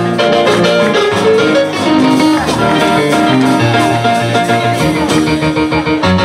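Live band playing, with guitar prominent and sustained melody notes; no sung words.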